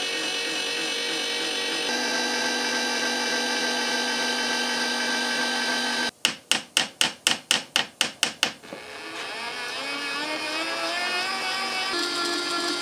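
Background instrumental music with steady held notes. In the middle there is a run of sharp, evenly spaced strikes, about four a second, followed by rising notes.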